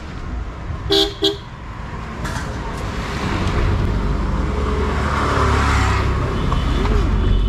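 A motor vehicle horn gives two short toots in quick succession about a second in. Then a vehicle's engine and tyres pass close by, building up and staying loud.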